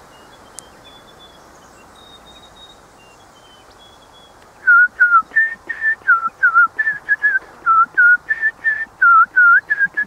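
Faint, thin, high notes of a small songbird for the first few seconds. Then, about halfway in, a loud human whistle starts: a quick run of short notes, about three or four a second, swapping between a dipping note and a higher level one, mimicking the bird's song.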